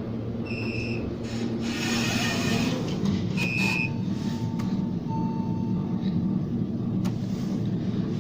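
High-speed traction elevator cab (Otis, modernised by Schindler) with a steady hum. A brief whoosh comes about two seconds in. Short electronic tones sound through it: two high beeps, near the start and at about three and a half seconds, then two longer, lower tones between about four and six seconds.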